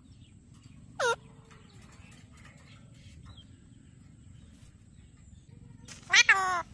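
Bird calls: a short call sweeping sharply down in pitch about a second in, then a louder, harsher call with falling pitch near the end, over a faint steady low background hum.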